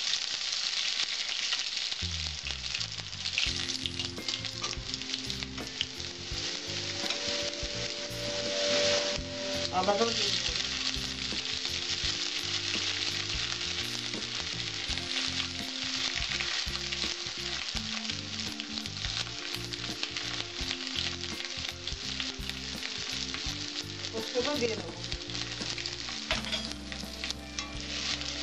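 Garlic and whole spices frying in hot mustard oil in a metal kadai: a steady sizzle, with a metal spatula stirring and scraping against the pan.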